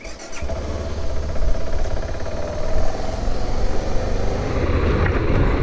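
Motorcycle engine running while riding, with heavy wind rumble on the microphone; it starts abruptly just after the beginning and then holds steady.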